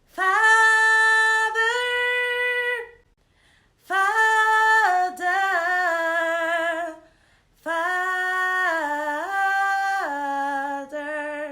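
A single voice singing a slow worship chorus unaccompanied, in three long, drawn-out phrases with brief pauses between them.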